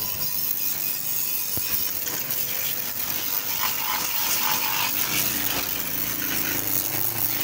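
High-pressure washer jet spraying water steadily against a cement-coated metal trolley, blasting the cement off.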